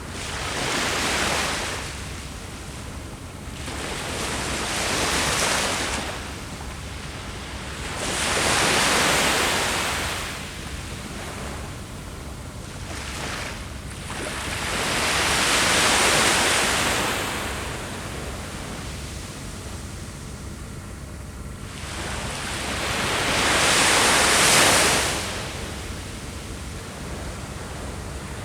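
Ocean waves breaking and washing up the beach, the surf swelling and falling away five times, some four to eight seconds apart, over a constant low wash.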